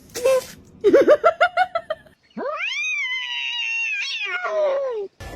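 Cat calling: a quick run of short rising calls, then after a brief break one long drawn-out yowl of about two and a half seconds that falls away at the end.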